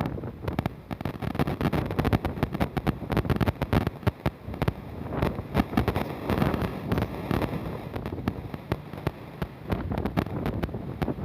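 Strong wind blowing across the microphone: a rough, gusting rumble full of sharp pops and crackles that swells and eases.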